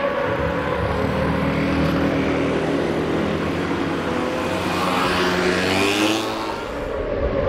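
Racing motorcycle engines running. About five seconds in, one revs up in a quickly rising note, and it drops away just after six seconds.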